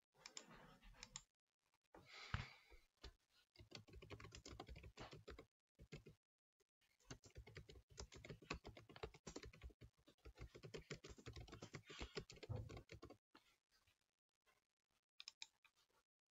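Faint typing on a computer keyboard: quick runs of keystrokes broken by a few short pauses, stopping about thirteen seconds in.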